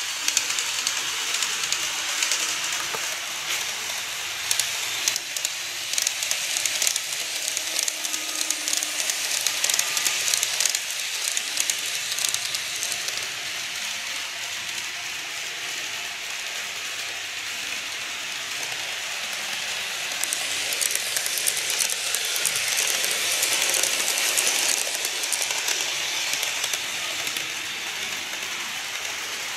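N-scale model train running on sectional track: a steady hiss of motor and wheels with rapid fine clicking over the rail joints, swelling a little twice.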